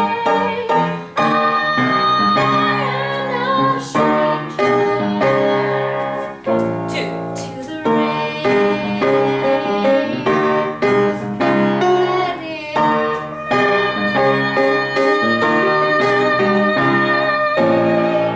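Piano accompaniment playing a song, with a woman singing over it in places, including a held, wavering note a couple of seconds in.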